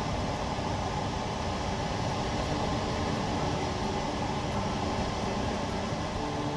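Steady mechanical hum and whir of running machinery, unchanging, with a couple of faint steady tones in it.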